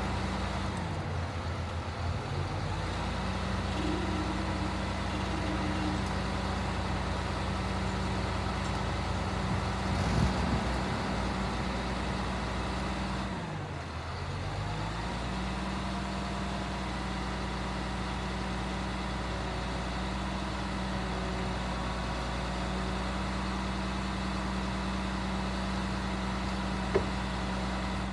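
Utility truck engine running at a steady idle. Its speed dips and recovers twice, about a second in and again about halfway through. There is a brief louder noise about ten seconds in and a single sharp click near the end.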